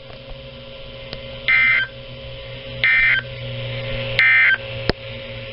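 NOAA Weather Radio SAME end-of-message data burst: three short, loud, buzzy digital bursts about a second and a half apart, marking the end of the weekly test message. A low steady hum from the receiver runs beneath, and there is one sharp click near the end.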